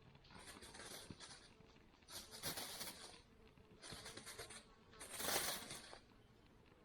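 Rustling and crinkling handling noise in four short bursts, the loudest about five seconds in.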